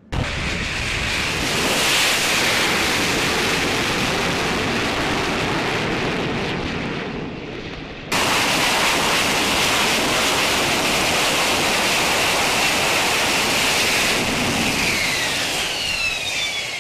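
Loud jet noise from an AV-8B Harrier II's Pegasus turbofan, with a steady high turbine whine over the rush. It breaks off sharply about eight seconds in and starts again at once, and near the end the whine slides in pitch.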